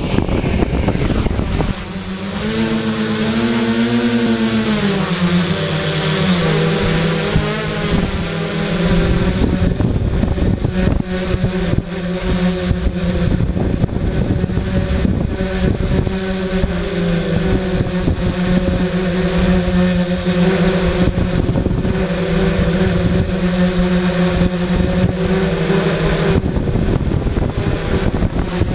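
Homemade quadcopter's electric motors and propellers spinning up about a second and a half in, their buzzing pitch rising and falling with the throttle during lift-off, then holding a steady hum in flight. Air rushes over the onboard camera's microphone throughout, and near the end the motor tone sinks beneath that rush.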